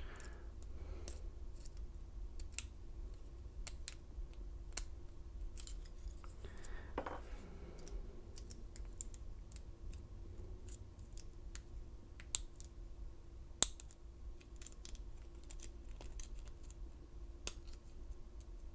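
Lock pick and tension wrench working inside a Commando steel laminated padlock, single-pin picking: scattered small metallic clicks and ticks as the pick probes the pins hunting for spool pins, with two sharper clicks about two-thirds of the way through, over a low steady hum.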